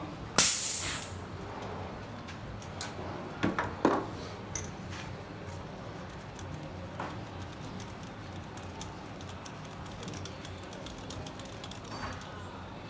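A short hiss about half a second in, fading quickly, as the diesel compression gauge is vented. Then two sharp metallic clicks just before four seconds, and light clicking and rattling of hand tools as the tester hose and adapter are worked loose from the cylinder head.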